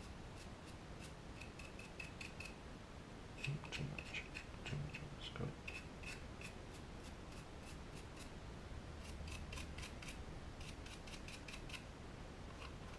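Stiff paintbrush bristles dry-brushed across a plastic model wagon body, making quick, faint scratchy strokes in three short runs.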